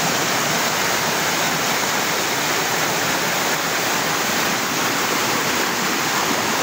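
Fast-flowing spring-fed stream rushing over rocks and small rapids, a steady, even rush of water.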